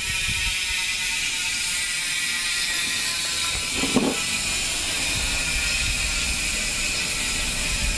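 HASSNS Pro4 mountain bike rear hub freewheeling, its 6-pawl, 120-click ratchet clicking so fast that it runs together into a steady high buzz. One short, louder knock about halfway through.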